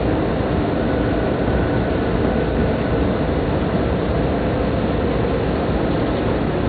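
Steady running noise of a double-decker MAX Shinkansen heard from inside the passenger cabin: an even rumble and hiss with a faint high whine.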